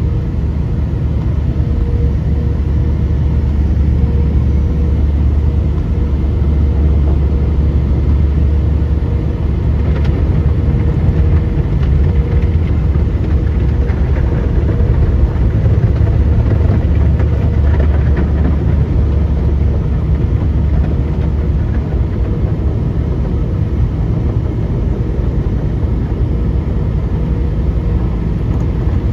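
Automatic car wash heard from inside the car's cabin: a loud, steady low rumble as the spinning brushes and spray work over the car. A faint steady tone is heard for the first several seconds.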